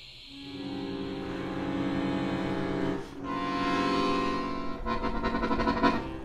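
Accordion sounding a sustained chord that swells in, breaks off briefly about three seconds in and comes back, then turns to fast pulsing near the end.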